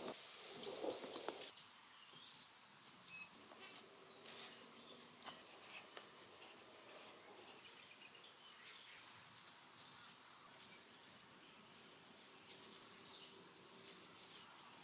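Insects making a steady, high-pitched buzzing drone that gets much louder about two-thirds of the way in, then drops back just before the end. A few light knocks and rustles from hands working come near the start.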